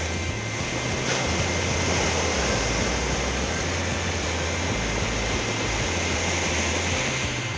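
Small sea waves breaking and washing up a sandy beach: a steady rushing surf noise that swells about a second in. Background music with a low bass line runs underneath.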